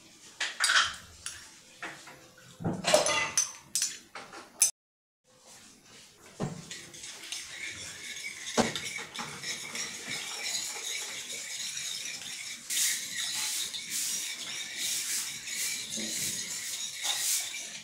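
Sliced garlic tipped from a small dish into a glass bowl of soy-sauce marinade, with a few knocks and clinks of dish on bowl. After a short break, a metal utensil stirs the liquid marinade, sloshing and clinking against the glass bowl.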